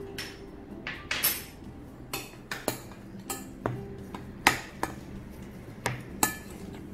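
Metal spoon clinking and scraping against a glass mixing bowl while a thick mashed-banana mixture is stirred, in a run of irregular sharp knocks.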